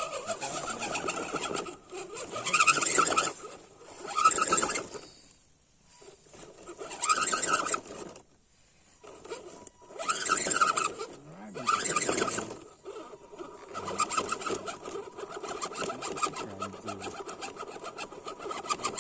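Electric motor and gear drive of a 1:10 scale RC crawler whining in several short bursts of throttle, about a second each.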